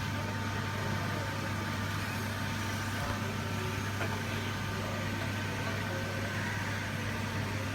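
Aberlink CNC coordinate measuring machine running, a steady hum with faint high steady tones over it.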